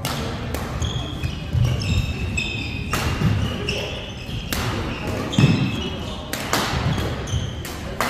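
Badminton doubles rally: a string of sharp racket hits on the shuttlecock at irregular intervals, with court shoes squeaking and feet thudding on the court mat between shots.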